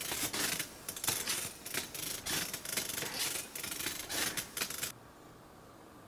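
Irregular scratchy rubbing and rustling, several strokes a second, that cuts off suddenly about five seconds in.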